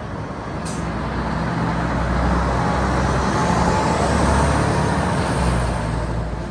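A 1996 Mack fire engine's diesel engine running as the truck drives past, growing louder to a peak about four seconds in and then fading as it moves away.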